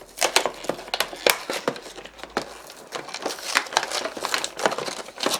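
Toy packaging crinkling and tearing in irregular crackles as a squishy multi-pack is pulled open by hand.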